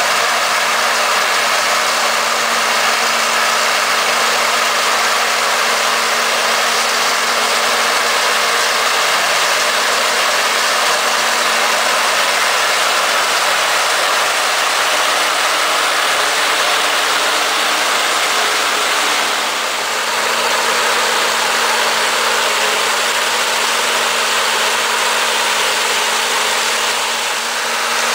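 Tractor engine and a tractor-mounted Mantovani corn ear harvester running steadily in the field, a continuous mechanical drone with a constant low hum. The level dips briefly about 19 seconds in and again near the end.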